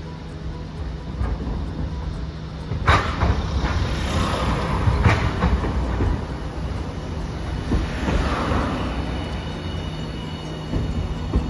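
Hiroden Green Mover LEX low-floor tram passing close by on street track: a steady running rumble, with sharp wheel clacks, the loudest about three and five seconds in.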